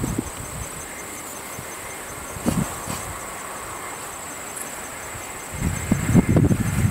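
A steady, high-pitched insect trill, with one brief knock about two and a half seconds in. Wind rumbles on the microphone near the end.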